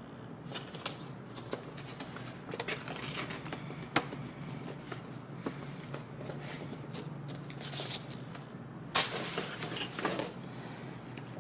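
Paper cards and a printed instruction packet being handled and flipped through: light taps and rustles, with louder rustling of paper about eight and nine seconds in.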